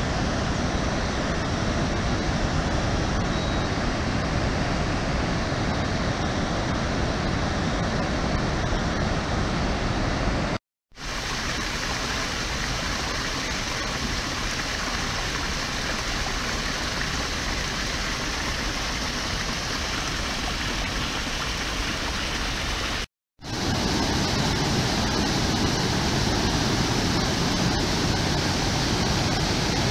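Rushing water of river rapids and a small waterfall spilling over rocks: a steady, loud rush. It cuts out to silence for a moment twice, about 11 and 23 seconds in, and comes back each time as the same rush.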